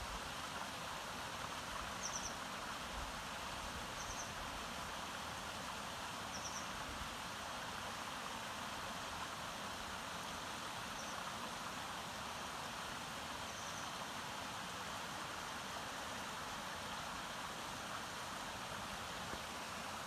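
Sespe Creek, a mountain stream, running over rocks with a steady, even rush of water. A bird gives short high chirps now and then through the first two-thirds.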